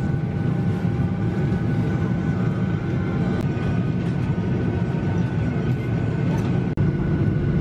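Steady airliner cabin noise on the ground: a loud low rumble with faint steady whining tones above it, briefly broken about seven seconds in.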